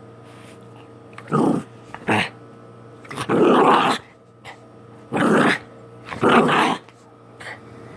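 Dog growling in five short bursts, the longest nearly a second, typical of rough play.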